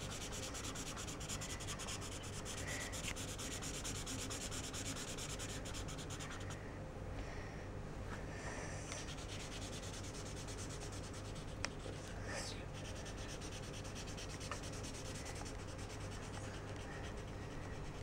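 Green felt-tip marker rubbing back and forth on notebook paper as the leaves are coloured in, with a short pause partway through.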